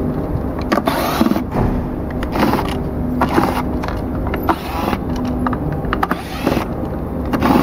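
Screwdriver backing screws out of a self-balancing scooter's plastic cover: short scraping, creaking strokes with clicks, repeating about once a second.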